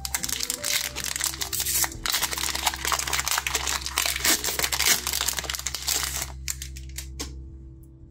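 Foil wrapper of a Pokémon booster pack crinkling and tearing as it is ripped open by hand; the crinkling stops about six seconds in. Quiet background music with held notes runs underneath.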